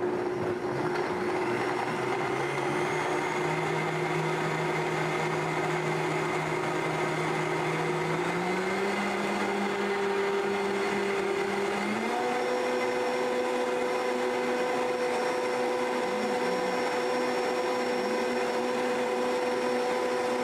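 Vitamix high-speed blender running steadily, blending soaked dates with soy milk until smooth. Its motor pitch steps up twice, about eight and twelve seconds in, as the speed is raised.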